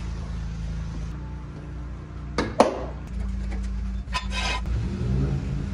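Metal knocks and a short clatter from a steel floor jack being set in place under a car, over a steady low hum.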